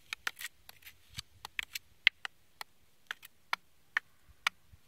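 Two wooden sticks swung like swords, clacking against each other in a rapid, irregular series of sharp knocks. The loudest knock comes about two seconds in.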